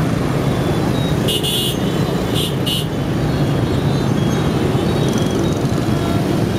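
Dense motorbike and car traffic running steadily through a roundabout, a continuous drone of small engines and tyres. A vehicle horn toots three times about one to three seconds in, one longer high-pitched blast followed by two short ones.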